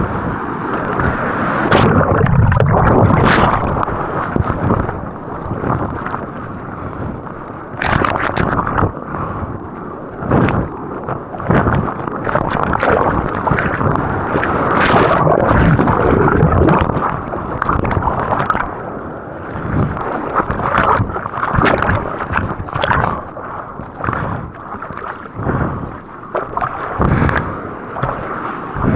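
Surf water splashing and churning close to the microphone, with many sudden splashes and wind buffeting.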